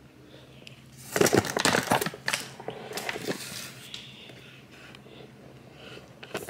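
Crackling, clattering kitchen handling noises from working homemade dough: a dense burst about a second in that lasts about a second, then a few lighter scattered crackles.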